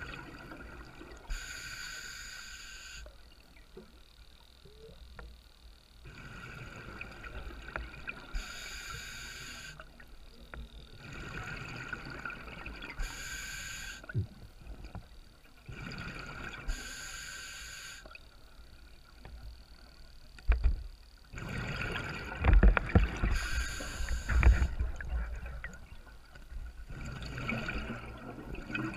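Scuba diver breathing through a regulator underwater: hissing inhalations alternate with bubbling exhalations, a breath every four to five seconds. In the last third the bubbling grows louder, with a few low thumps.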